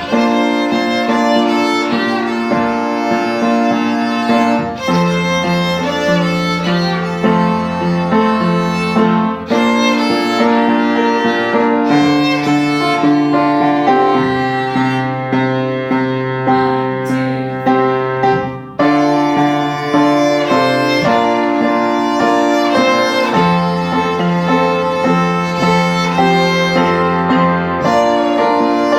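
Violin playing a song melody in sustained bowed notes over a lower held accompaniment.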